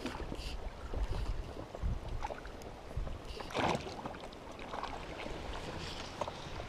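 Water lapping and splashing around an inflatable raft, with a low wind rumble and scattered soft clicks and rustles. One louder rustle comes about three and a half seconds in.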